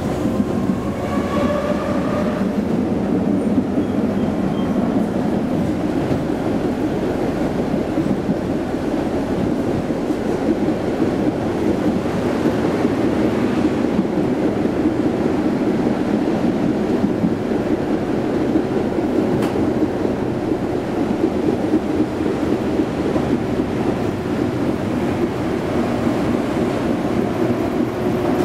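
Konstal 105N tram running along the track, heard from inside the passenger cabin: a steady rumble of wheels and running gear. A brief pitched whine rises out of it about a second in.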